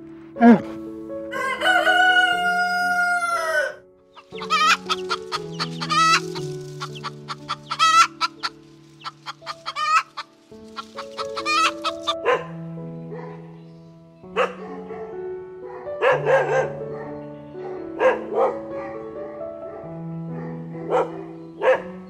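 A rooster crows once, one long call that bends down at the end, followed by many short, rapid clucks and calls. Background music with slow held notes plays underneath.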